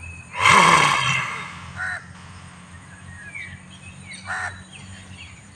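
A person's forceful open-mouthed roaring exhale, the lion's roar of the Simhasana (lion pose) yoga breath. It starts about half a second in, loud and breathy, and fades over about a second. Two short, fainter sounds follow later.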